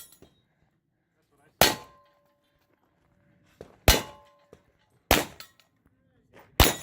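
Four pistol shots at uneven intervals, each a sharp crack. After the first two, a struck steel target rings on with a clear tone.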